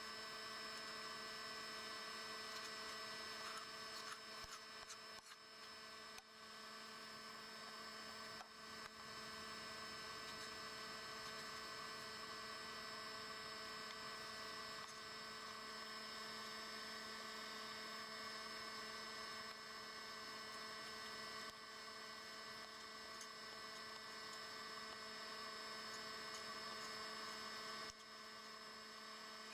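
Low, steady electrical hum made of several constant tones, with no clear event standing out.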